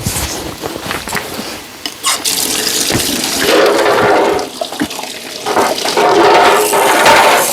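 Water running from a tap and splashing as refrigerator parts are rinsed, with a few knocks of the parts being handled in the first seconds. From about halfway it becomes a fuller rushing, with a rising filling tone.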